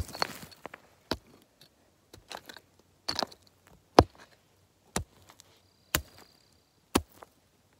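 A hand digging tool striking rocky ground about once a second, digging out soil and rock between boulders to loosen agate nodules; the strikes are short and sharp, the hardest about halfway through.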